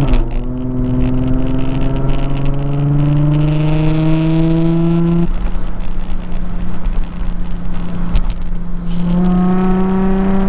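Nissan 350Z's 3.5-litre V6 through a muffler-deleted cat-back exhaust, accelerating. The exhaust note climbs steadily in pitch for about five seconds, drops suddenly to a steadier tone, then begins climbing again near the end, with rushing wind under it.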